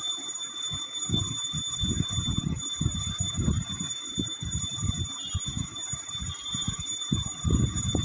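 Irregular low rubbing and bumping sounds over a steady high-pitched electrical whine.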